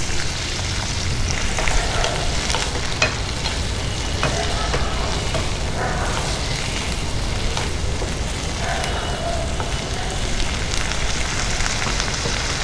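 Boiled peas frying in a little oil and their leftover cooking water in a non-stick kadai, sizzling steadily. A wooden spatula stirs them, with scattered clicks and scrapes against the pan.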